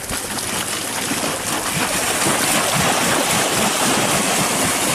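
Water splashing and spraying in a steady rush as a man runs barefoot across floating plywood boards, his feet slapping the boards and churning the water. It starts abruptly and builds a little over the first couple of seconds.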